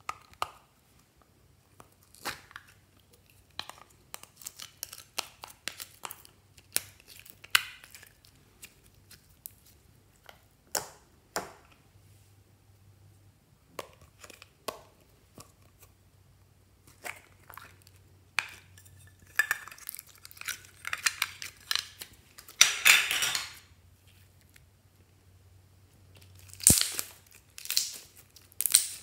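Small plastic slime tubs being handled and opened, and clear slime peeled out of the tub and stretched by hand: a string of short clicks and sticky pulling sounds, busiest near the end.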